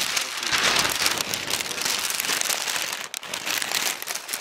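Wrapping paper crinkling and rustling right against the microphone, a dense, steady crackle.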